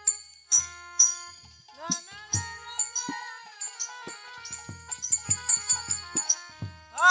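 Instrumental break in Bengali kirtan accompaniment: drum strokes with a falling low tone, small hand cymbals (kartal) ringing on each beat, and a few held melody notes. The cymbal strikes quicken into a fast run in the second half.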